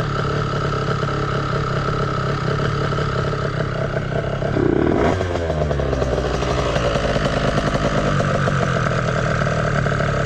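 Small two-stroke scooter engine idling steadily, its note changing briefly about halfway through. The engine's carburetor has been overflowing fuel, and it runs properly only with the choke on.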